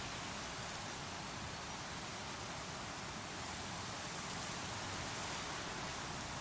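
Creek water rushing steadily, an even hiss with no separate splashes or other events.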